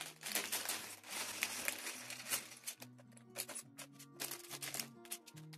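A clear plastic bag of Lego pieces crinkling as it is handled and torn open, in irregular crackles, over background music with slow held notes.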